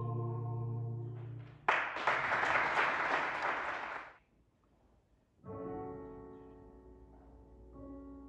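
A cappella vocal quartet's held closing chord fading out. Then audience applause for about two and a half seconds, a moment of quiet, and the quartet starting the next song on a sustained chord.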